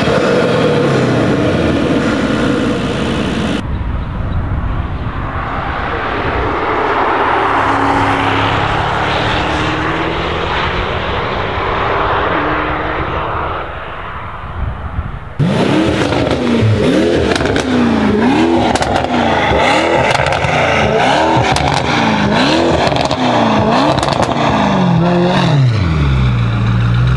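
Car engines from three separate clips. First, a Mercedes van's engine is heard with the bonnet open. Then a camouflaged Mercedes saloon runs along a race track, its engine note rising as it drives. Last, a Mercedes-AMG E-Class saloon's engine is revved hard about eight times in quick succession, each rev rising and falling, and settles to a low note near the end.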